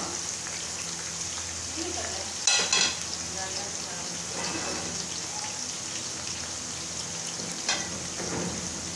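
Potato fries and green chillies sizzling steadily in hot oil in a karahi. A clatter of metal utensils comes about two and a half seconds in, and a shorter clink near the end.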